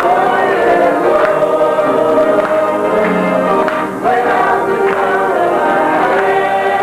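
Choir singing a sacred or gospel-style piece, many voices holding sustained notes, with a brief dip about four seconds in.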